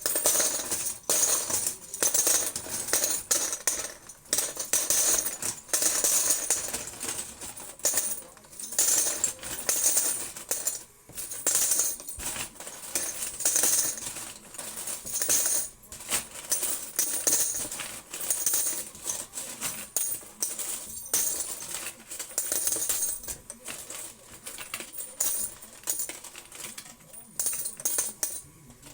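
Quarters clinking and jingling against each other, being handled and sorted in quick, irregular clusters with brief pauses.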